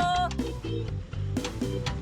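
Upbeat background music with a repeating bass line and a steady beat, a held sung or whistled note fading out just after the start.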